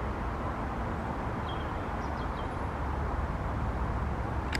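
Class 66 diesel locomotive's EMD two-stroke V12 engine running as it hauls a train toward the listener, a steady low rumble that grows slightly louder near the end. A few faint bird chirps sound in the middle.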